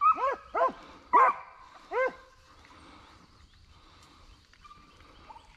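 A hunting dog giving mouth on the chase of a swamp rabbit: four quick barks in about two seconds, each a drawn-out note that rises and falls in pitch, the third the loudest. After that it goes quiet.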